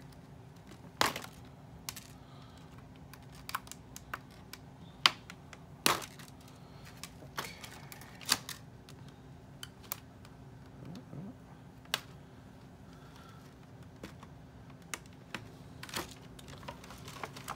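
Doll packaging being cut and pulled apart by hand: scattered sharp clicks and snaps at uneven intervals, with some light plastic rustling.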